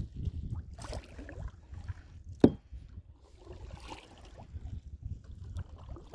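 Canoe paddles dipping and splashing in the water in irregular strokes, with one sharp knock about two and a half seconds in.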